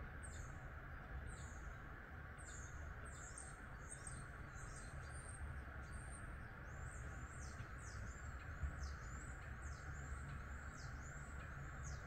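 Common starling singing: a run of short, high whistles that slide downward, coming thicker from about three seconds in, over a steady low background noise.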